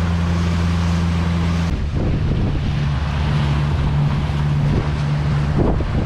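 Small motorboat under way: the engine runs as a steady low drone, with wind buffeting the microphone and water rushing past. About two seconds in, the engine note turns rougher and less even.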